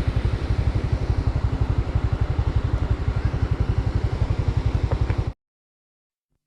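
Honda Dash 125 FI's single-cylinder four-stroke engine running with an even, fast low pulse. It cuts off abruptly a little over five seconds in.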